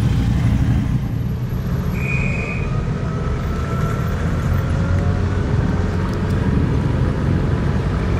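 Engines of WW2-era military vehicles running steadily as the convoy drives by, with a brief high squeal about two seconds in.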